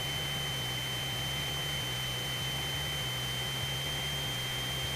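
Cessna 172 cockpit noise through the headset intercom: a steady low engine drone under hiss, with a thin, constant high-pitched tone.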